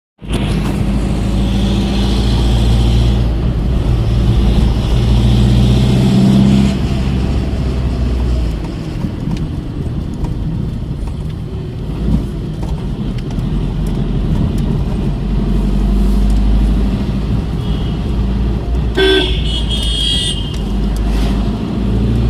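A car driving on a road, its engine and road noise making a steady loud drone, with a short vehicle-horn sound near the end.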